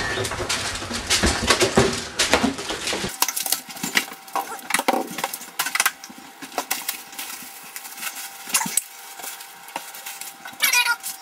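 Kitchen clatter: dishes, utensils and containers clinking and knocking against the counter in a string of short, irregular hits.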